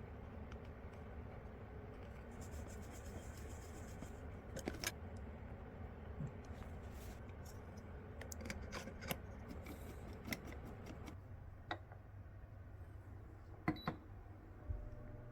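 Faint clicks and taps of hands working on an electric fan's motor parts, over a low steady hum. A new steady hum comes in near the end.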